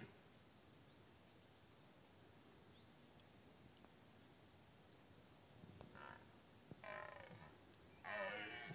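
Red deer stag roaring in the rut: after a few quiet seconds with faint bird chirps come three roars, a short one about six seconds in, a longer one a second later and the loudest starting about eight seconds in.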